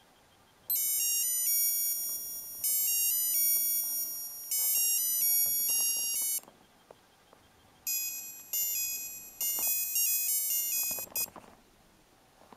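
Kessel 7 Melodies Chrono digital watch's melody chip playing a high, bleeping electronic tune, one note at a time, for about six seconds. After a short pause a second tune plays for about three and a half seconds and stops suddenly.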